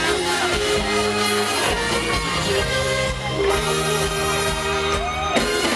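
Live Thai mor lam band music, loud and steady, with a woman singing wavering phrases over held instrumental notes.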